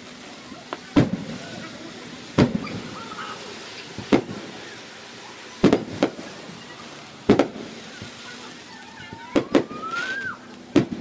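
Aerial firework shells bursting overhead, a sharp boom with an echoing tail about every second and a half, with a close pair of booms near the end.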